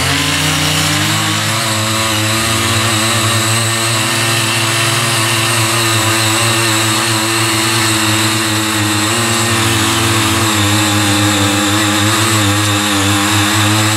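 Small 43cc petrol engines of CY50 mini rotary cultivators running steadily under load while their six-blade rotary tines till soil, more than one machine at a time.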